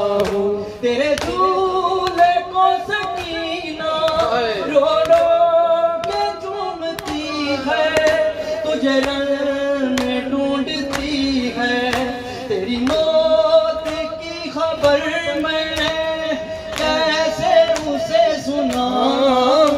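A man singing an Urdu noha (Shia lament) through a microphone in drawn-out, wavering phrases with melismatic runs, over a steady beat of sharp strikes.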